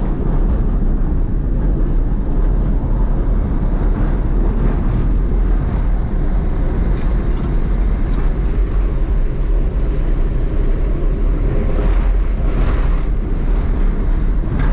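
Vehicle driving down a corrugated dirt track on let-down tyres: a steady, heavy rumble of road and running noise.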